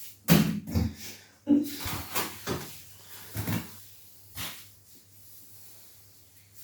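A run of short knocks and scrapes, about seven over the first four and a half seconds, the loudest near the start, then quiet.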